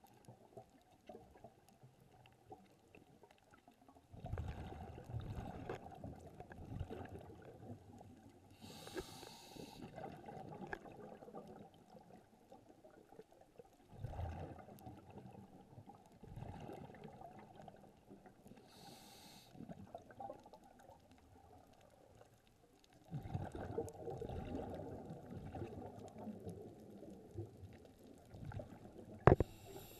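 Scuba diver's breathing heard through an underwater camera housing: muffled, low bubbling rumbles of exhaled bubbles that come and go every few seconds with quiet gaps between, and twice a short high hiss.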